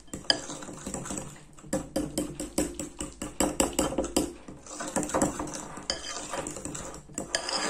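Metal fork stirring and mashing a soft avocado-and-cocoa cream in a glass bowl, its tines clinking and scraping against the glass several times a second.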